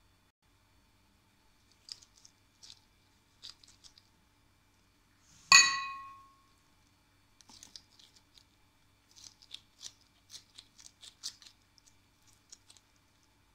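One loud ringing clink of a glass plate about five and a half seconds in, fading quickly. Before and after it come light, quick crinkles of a thin plastic sheet being handled while shaping a small ball of milk paste.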